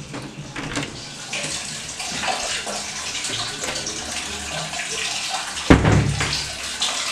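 A metal door knob clicks and a door opens, then water runs steadily with small splashes and ticks. A single heavy thump comes near the end.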